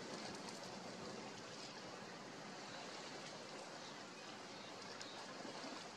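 Steady outdoor ambience: an even, faint hiss of water and wind, with no calls or distinct events.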